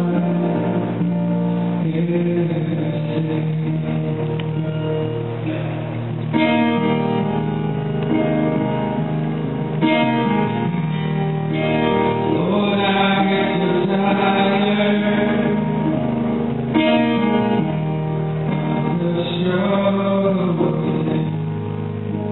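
Live worship song: a man singing with sustained Yamaha keyboard chords accompanying him, with the voice coming through more strongly from about six seconds in.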